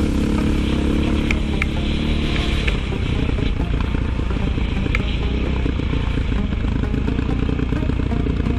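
ATV engine running while riding down a sand dune, with heavy wind rumble on the camera's microphone. The engine's even hum is clear for the first couple of seconds, then mostly buried under the wind, and a few sharp clicks come through.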